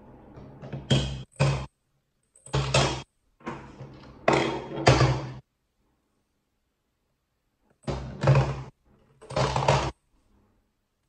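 LeapFrog Peek-A-Shoe Talking Octopus toy as plastic balls are dropped into it: several short bursts of thunks and knocks mixed with the toy's electronic music, each cut off by silence.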